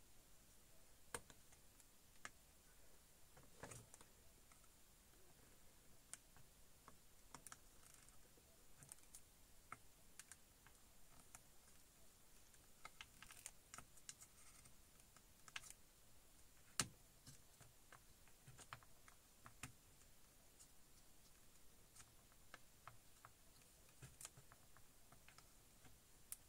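Faint, irregular small clicks and taps of hand tools on a circuit board while a shorted diode is being desoldered, in near silence, with one sharper click about two-thirds of the way through.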